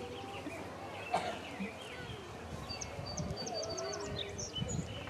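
Birds singing and chirping outdoors, with a quick run of about eight high, evenly spaced chips in the middle and a single sharp click about a second in, over low wind rumble on the microphone that grows near the end.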